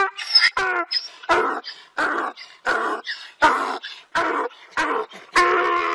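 A dog barking over and over, about one bark every 0.7 seconds, then a longer drawn-out call near the end.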